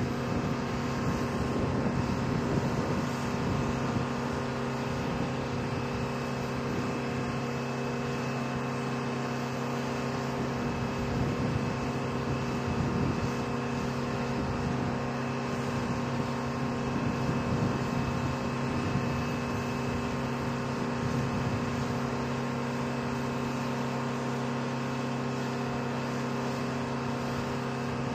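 Steady mechanical drone of running machinery: a low hum holding several fixed tones over a constant hiss.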